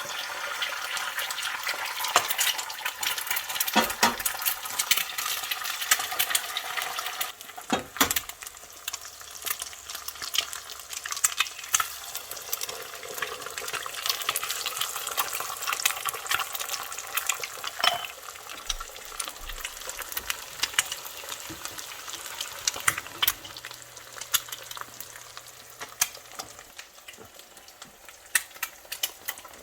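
Eggs frying in butter in a cast iron skillet: a steady sizzle with many sharp crackles and pops, easing off somewhat about seven seconds in. Two sharper knocks stand out, about four and eight seconds in.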